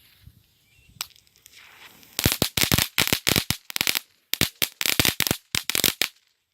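Weco Blitzknatterbälle, small crackling throw-balls, going off in rapid strings of sharp cracks, several clusters over about four seconds, after a single snap about a second in.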